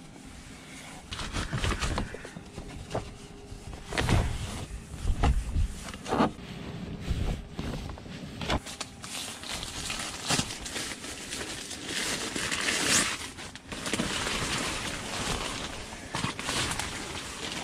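Plastic tarpaulin rustling and crinkling as it is handled, with scattered knocks and clicks from gear being moved, and a few heavier low thumps about four to six seconds in.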